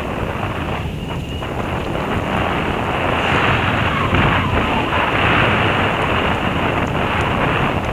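Wind buffeting the microphone of a bicycle-mounted camera, a steady rushing that grows louder a couple of seconds in.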